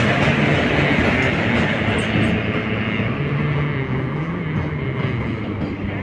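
Indian Railways passenger train running past close by: steady rumble and rattle of the coaches' wheels on the rails, with a low, slightly wavering hum underneath.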